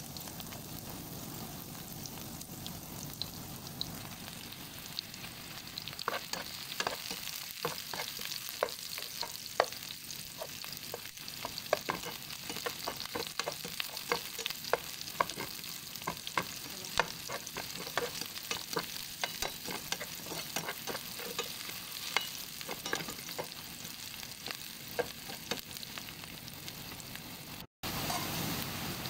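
Sliced onions and garlic sizzling in hot oil in a pan, a steady hiss. From about six seconds in, a metal spatula stirs them, with many sharp clicks and scrapes against the pan.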